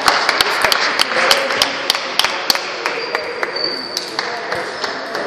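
Table tennis balls clicking sharply and irregularly off bats, tables and the wooden floor from several tables at once, over a murmur of voices.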